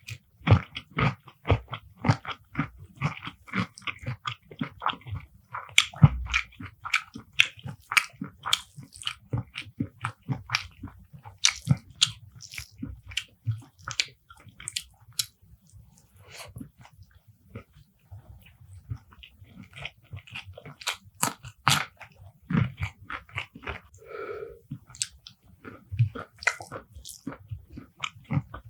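Close-miked mouth sounds of a person eating beef kala bhuna curry with rice: steady wet chewing with frequent sharp crunches and smacks, thinning out briefly past the middle.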